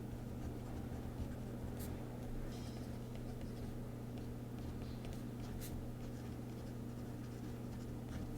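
Faint scratching of a Deco Rush tape roller being pressed slowly and firmly along a paper planner page, over a steady low electrical hum.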